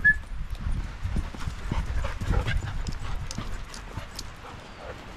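Footsteps and running dogs' paws on a dirt woodland path strewn with needles and twigs: a stream of irregular crunching, scuffing footfalls.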